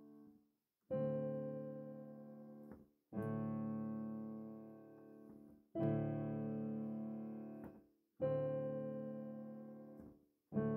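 Background music: slow piano chords, a new chord struck about every two and a half seconds, each ringing and fading before cutting off abruptly.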